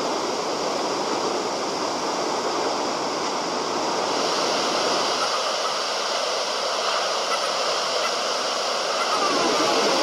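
Loud, steady rush of heavy surf: a huge wave breaking, its whitewater churning. It grows slightly louder near the end.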